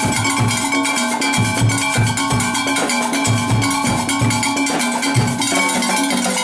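A Trinidad engine-room percussion section playing a fast, driving rhythm. Brake-drum irons are struck with steel rods in quick clanking, ringing strokes over a beating bass drum.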